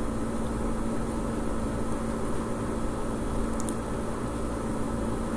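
Steady background hum and hiss, a constant machine-like drone with one steady low tone and no distinct events.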